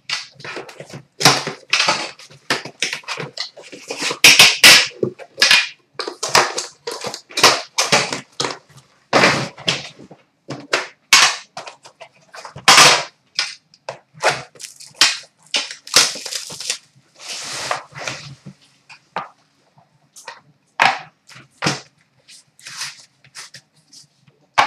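Hands opening a sealed box of 2011-12 Upper Deck The Cup hockey cards: irregular crinkling and rustling of the wrapping and packaging, with knocks as the box, lid and cards are handled on a glass counter.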